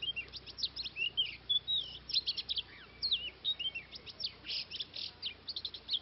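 Oriental magpie-robin singing: a rapid, varied run of clear whistles, sliding and wavering notes and short trills.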